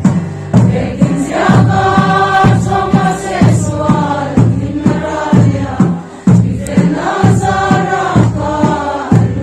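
A large group of people singing a song together, over a steady beat of about two strikes a second.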